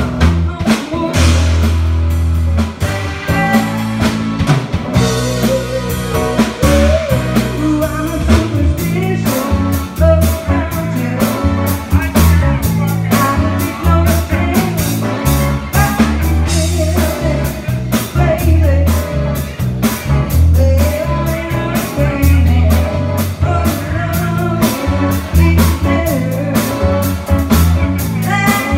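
Live band playing an upbeat cover on electric guitars, keyboard and drum kit over a heavy, pulsing bass line with a steady beat.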